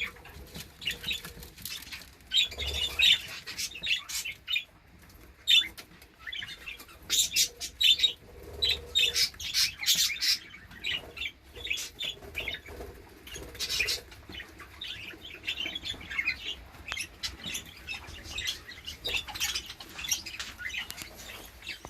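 Budgerigars chirping and chattering in many short, irregular calls.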